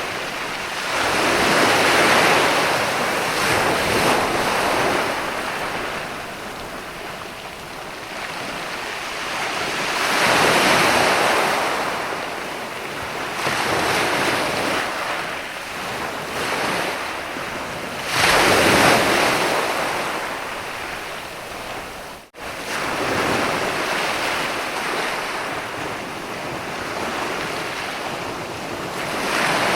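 Ocean surf on a sandy beach: a steady wash of water with waves breaking and surging in about every eight seconds, four times. There is a split-second gap in the sound about two-thirds of the way through.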